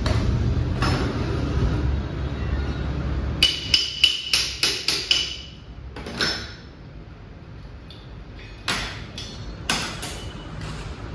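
Sharp metal-on-metal knocks, like hammer blows in a workshop: a quick run of about eight ringing strikes a few seconds in, then a few scattered knocks near the end. A low rumble runs under the first few seconds.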